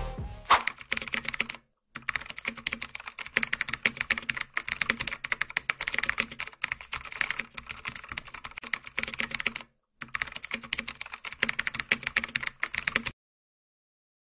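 Rapid, continuous typing clicks on a computer keyboard, with two brief breaks, about two and ten seconds in, stopping abruptly about a second before the end.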